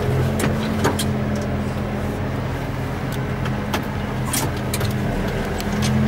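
New Holland T7050 tractor's six-cylinder diesel running steadily under ploughing load, heard from inside the cab. A few short sharp clicks from the cab or implement come through near the start and again towards the end.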